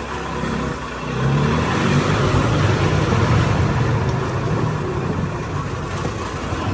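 Gas golf cart's piston engine running while the cart moves, picking up speed about a second in and then holding steady.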